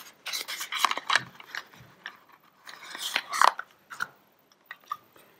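Small cardboard box being opened by hand: flaps scraping and rustling, with clicks as the plastic sensor pieces are pulled out. It is busiest in the first half and again around three seconds in, then falls to a few light ticks.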